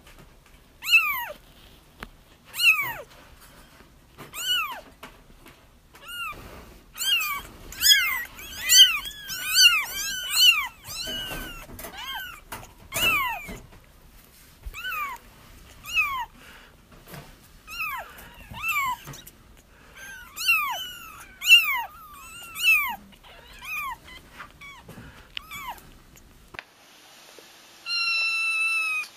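Young kittens crying for their mother: a run of high, thin mews, each falling in pitch, at times several overlapping. Near the end the background changes and a few more mews follow.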